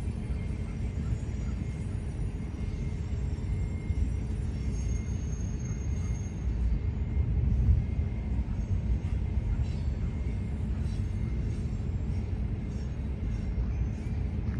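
Steady low outdoor background rumble with no train passing, with a few faint high ticks in the second half.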